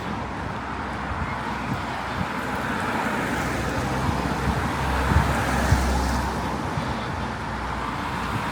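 Road traffic going by on a town street: a steady rush of passing cars, with a deeper engine rumble swelling around the middle as a vehicle passes close.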